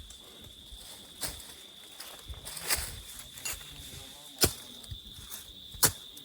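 Footsteps on rough, uneven ground while climbing a slope: five or six irregular knocks, roughly one a second. Behind them is a steady high-pitched insect drone.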